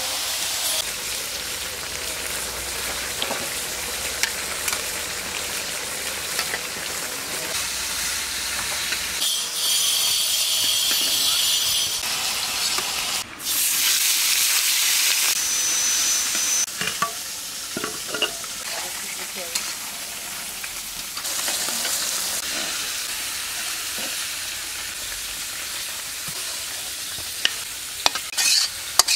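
Food frying in hot oil in a cooking pan: a steady sizzle, with stirring and occasional clicks of the spatula against the pan. The sizzle changes abruptly a few times.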